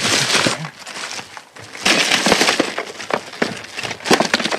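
Footsteps crunching and rustling through litter and broken plaster underfoot, with sharp cracks and clinks of debris and plastic bottles. The loudest crunching comes at the start and again about two seconds in.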